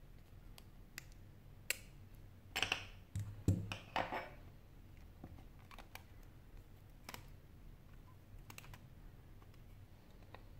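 Small clicks and taps of a phone's back panel and parts being handled on a desk, with a short run of scraping and rustling about two and a half to four seconds in.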